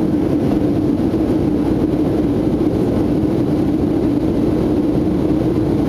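Steady cabin noise inside a Boeing 737-700 in its climb: the CFM56-7 jet engines and rushing air make an even, loud drone with a prominent low hum.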